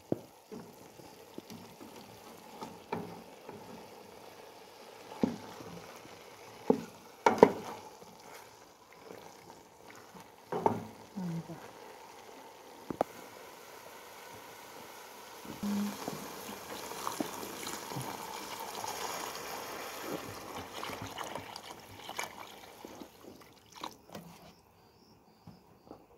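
Wooden spoon stirring beef in thick tomato sauce in an aluminium pot, knocking against the pot now and then. From about halfway through there is a steady rush of liquid as water is poured into the pot, thinning the sauce to a broth.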